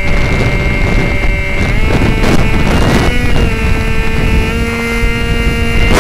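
Motor of a TopModel Stinger RC model airplane running with a steady whine. Its pitch shifts twice as the throttle changes, under strong wind buffeting on the microphone.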